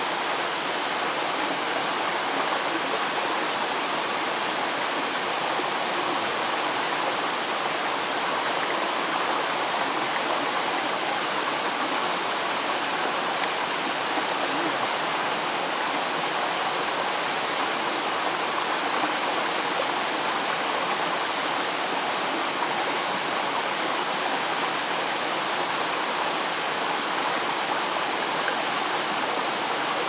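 Shallow stream water running and splashing over stones and around bare feet, a steady rush heard close to the surface. Two brief high chirps stand out, about 8 and 16 seconds in.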